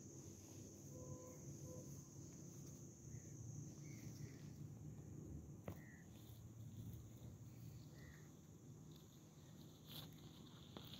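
Faint outdoor ambience: a steady high insect trill that fades away about halfway through, over a low rumble, with a few soft chirps and a single click.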